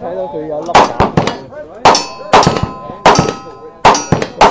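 Gunfire on a shooting range: about seven sharp shots at an uneven pace. Several are followed by the ringing clang of struck steel targets.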